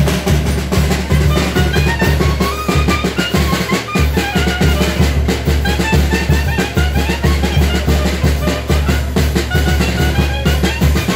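Festival band music: a bass drum keeps a steady beat under a fast, running melody of short high notes.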